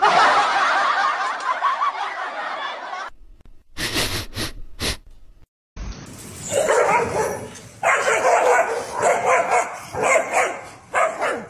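Short yapping barks in quick runs, starting and stopping abruptly several times.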